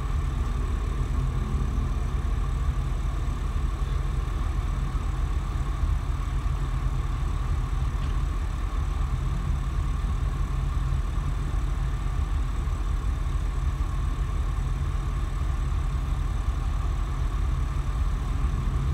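A motor yacht's twin diesel engines running steadily at low speed while manoeuvring: a constant low drone that does not change.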